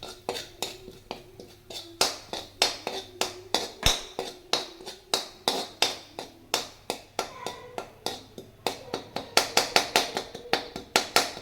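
A metal spoon clinking repeatedly against a metal kadhai while stirring, about three or four strikes a second, quicker and louder near the end, with a faint ringing from the pan.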